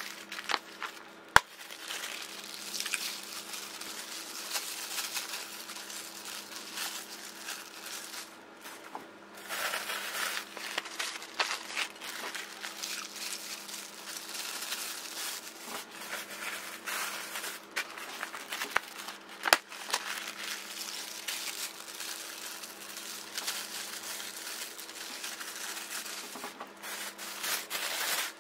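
Thin plastic takeaway bag crinkling and rustling as it is handled and emptied of soupy food into a glass bowl, with a few sharp clicks. A faint steady hum runs underneath.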